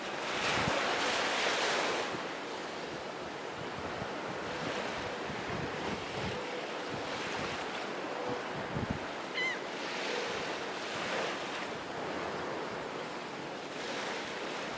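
Small sea waves washing onto a sandy beach in repeated swells, the strongest in the first two seconds.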